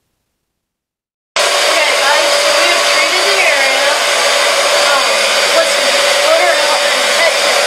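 A Powr-Flite portable carpet extractor's vacuum motor, running loud and steady with a constant whine while the floor wand is worked over the carpet. It starts abruptly about a second and a half in.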